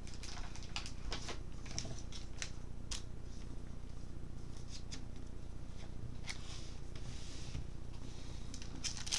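Baseball cards being handled and flicked through: a run of light clicks and swishes as the stiff cards slide against each other, thickest at the start and again near the end, with a softer brushing sound a little past the middle.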